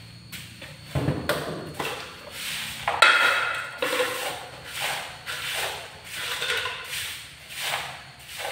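Plastic plate scraping and knocking on a tile floor as a monkey grabs and tilts it: a string of short scrapes, with sharp knocks about one and three seconds in, the second with a brief high squeak.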